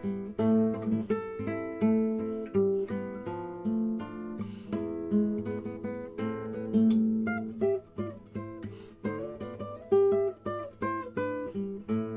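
Acoustic guitar playing a melody over plucked and strummed chords.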